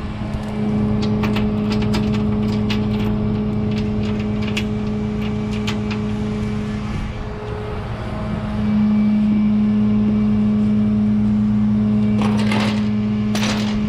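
Tow truck's engine idling steadily, getting louder about nine seconds in, with light metallic clinks of a tie-down chain being handled on the steel deck and a burst of chain rattling near the end.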